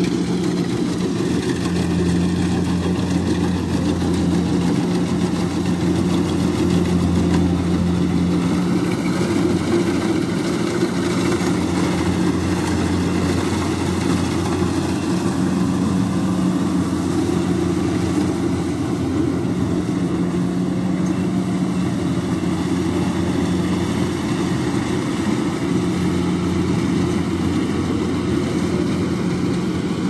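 Kubota DC-70 rice combine harvester's diesel engine running steadily under load as it cuts and threshes rice, passing close by midway.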